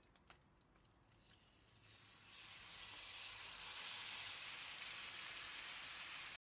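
Food frying in a hot pan: a few sharp crackles at first, then the sizzle builds over a couple of seconds and holds steady before cutting off suddenly near the end.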